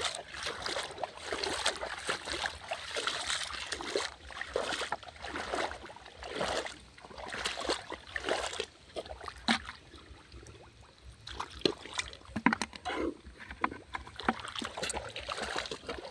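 Legs wading slowly through shallow water, each step splashing and sloshing in an uneven rhythm.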